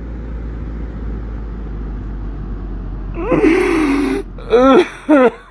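A woman crying: a drawn-out wail about three seconds in, then a run of short, rhythmic sobs, about two a second, over a steady low rumble.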